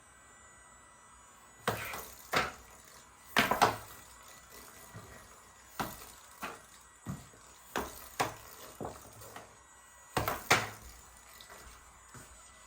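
Hard plastic parts of a toy air hockey set clacking and knocking at an irregular pace, with louder clusters about two seconds in and again near the end.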